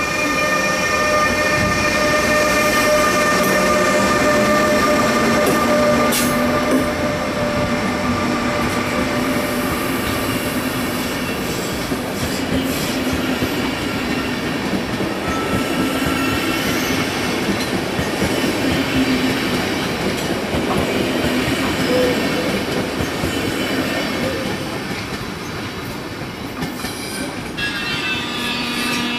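ÖBB class 1116 Taurus electric locomotive pulling a rake of SBB passenger coaches out of the station. Steady high whining tones are strongest in the first several seconds, over the rumble of the coaches' wheels on the rails as they roll past, and the sound eases off near the end as the train draws away.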